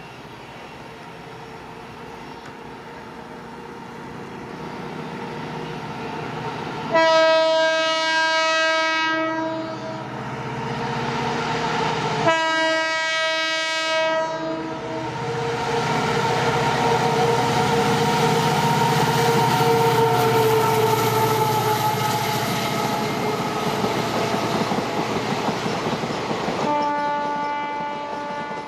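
Diesel-electric locomotive, an EMD GT46MAC (Indian Railways WDG4), and its train: the engine noise builds as it approaches, the horn gives two long blasts about seven and twelve seconds in, the train then runs past loudly, and the horn sounds again near the end.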